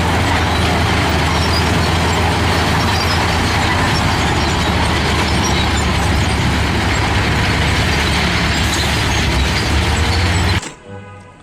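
Electronic engine-rumble sound effect from a toy garbage truck, triggered by its red button: a loud, steady, noisy rumble with a deep hum that starts abruptly and cuts off about ten and a half seconds in.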